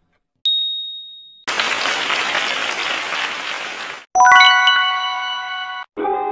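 Quiz sound effects as a countdown runs out: a single high ding about half a second in, then about two and a half seconds of an applause-like sound effect, then a bright ringing chime. Background music starts near the end.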